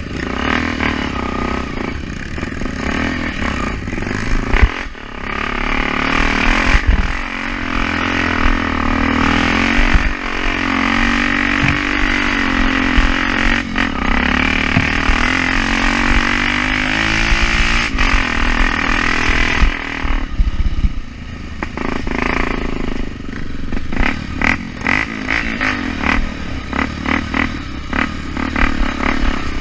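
Trail motorcycle engine running and revving up and down, pitch rising and falling repeatedly through the middle, with clattering and scraping in between.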